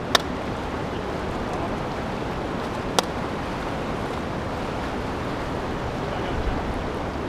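Steady rush of wind and fast-flowing river water, with a sharp click just at the start and another about three seconds in.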